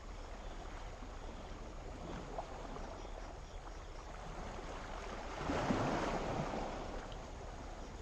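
Small wave washing up on a calm sea shore, its wash swelling about five seconds in and fading away again, over a steady low hiss of the sea.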